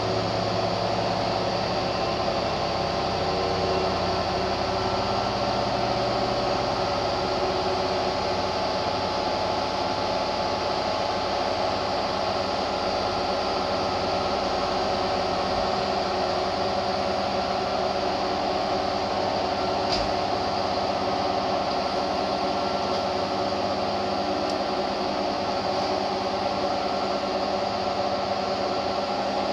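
Hotpoint front-loading washing machine running: a steady mechanical hum with several held tones, and a faint tick about twenty seconds in.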